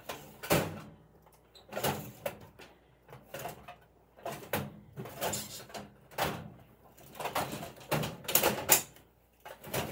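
Household items being rummaged through and handled: an irregular run of rustles, knocks and clunks, about one every half second to a second.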